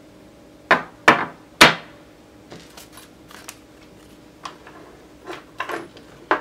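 Three sharp knocks close together, then lighter clicks and taps: 18650 lithium-ion cells being knocked and set down on a wooden workbench.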